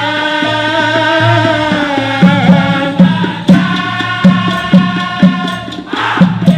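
Dikir barat: a male chorus singing a long drawn-out line in unison over a steady beat of low drum strokes, about two a second.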